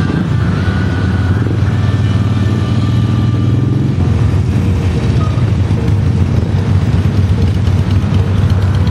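Many motorcycle engines running at low speed as a large group of riders rolls past in a slow column, a steady low drone of engines.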